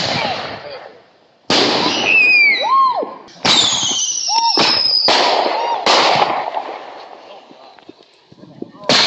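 Fireworks going off: about five sharp bangs, each trailing off in a long echoing rumble, with high whistles gliding in pitch between the bangs.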